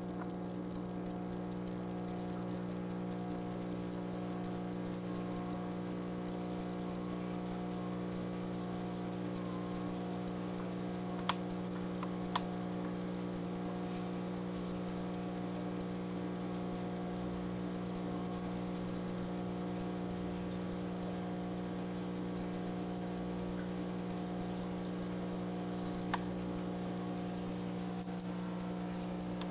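A steady hum made of several unchanging tones, with three short faint clicks: two about a second apart near the middle and one near the end.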